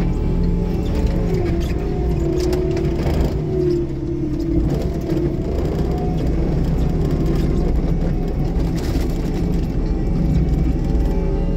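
Bobcat T76 compact track loader and Loftness forestry mulcher running hard, heard from inside the cab: a steady engine drone with a whine over it. The whine sags in pitch about three to five seconds in, then comes back up.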